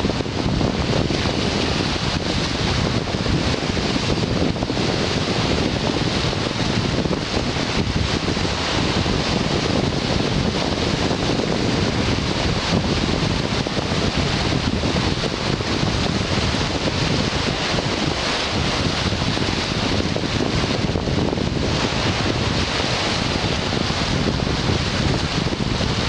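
Small sea waves breaking and washing over shoreline rocks in a steady, unbroken wash, mixed with wind rumbling on the microphone.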